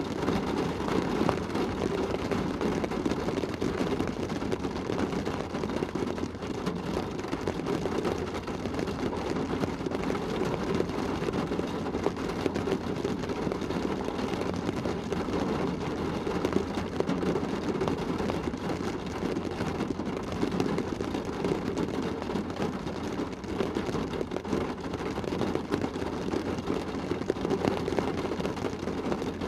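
Heavy rain drumming on the roof and windows of a car, heard from inside the cabin as a dense, steady patter with a muffled low rumble.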